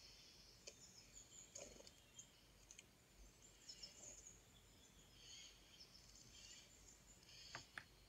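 Faint birdsong and outdoor ambience from a bird-feeding video playing through laptop speakers, with a few soft clicks, two of them close together near the end.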